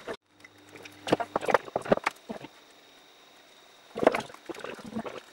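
Handling noise on a wooden chessboard: scattered sharp knocks and clicks about a second in, then a cluster of knocks at about four seconds. The sounds come from glued veneer squares being pressed down and ceramic mugs being set on them as weights.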